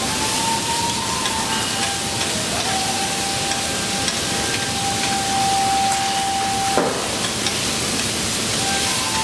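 Meat and vegetables sizzling on a hot teppanyaki griddle, a steady hiss. A single sharp knock of a metal utensil on the griddle comes near the end.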